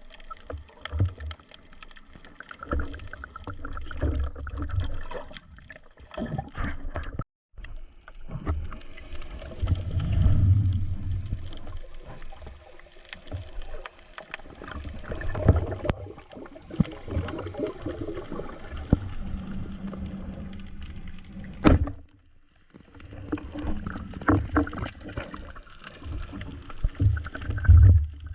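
Water sloshing and gurgling close to the microphone, with low thuds and scattered knocks. It drops out briefly twice.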